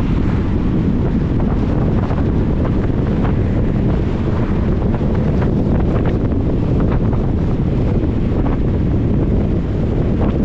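A car driving on a wet road in rain: a steady rumble of tyre and wind noise, with scattered short ticks.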